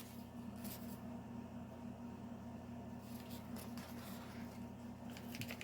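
Faint light clicks and rustles of small plastic toy figures and their packaging being handled, over a steady low electrical hum.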